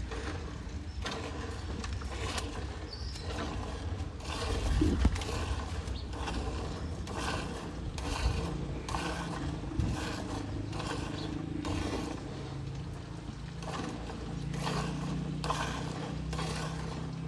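Hand milking of a cow into a steel bucket: streams of milk squirting into the pail in a steady rhythm of about two squirts a second. A low thump about five seconds in, and a low steady hum underneath in the second half.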